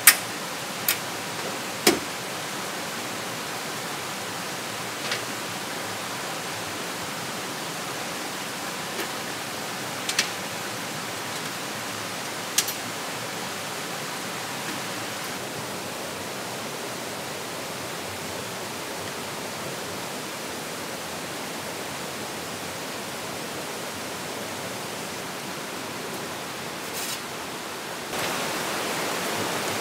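Steady rushing of a rocky stream. Over it come a few sharp clicks and knocks from handling the Jeep's tailgate gear, the loudest right at the start and about two seconds in, with fainter ones scattered later.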